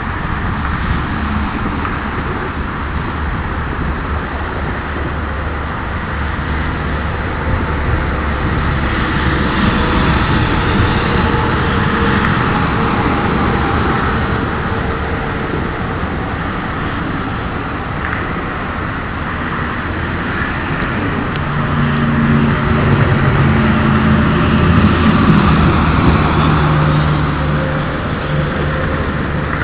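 Airboat's engine and propeller running steadily, growing louder for a few seconds about three quarters of the way through.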